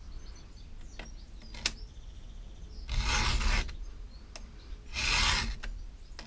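Hand file rasping across a steel chainsaw cutter tooth in two long strokes about two seconds apart: the chain being sharpened by hand. Two sharp clicks come about a second in, before the strokes.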